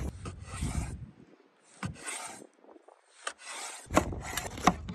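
Knife cutting on a wooden cutting board: rough slicing strokes and several sharp knocks of the blade meeting the board, more of them near the end as a red chile is cut.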